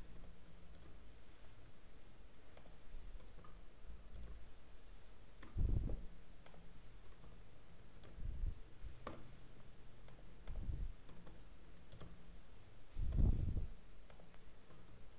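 Computer keyboard typing: faint, scattered key clicks, with a few soft low thumps among them.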